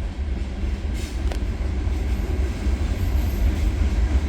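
New York & Atlantic freight train rolling past, a steady low rumble with one sharp click about a second in.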